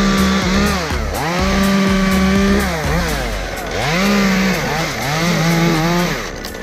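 Two-stroke chainsaw running at high revs, with the throttle let off and opened back up about three times before it stops near the end.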